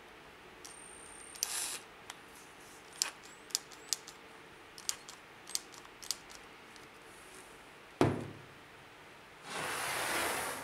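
Handling noise from a cordless drill: scattered clicks and light knocks as its chuck is turned by hand, then one hard thump about eight seconds in and a second of rustling near the end.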